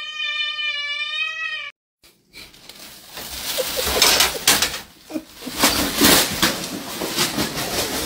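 A cat's long, steady yowl that cuts off suddenly about two seconds in. It is followed by a thin plastic bag rustling and crinkling as cats push into it.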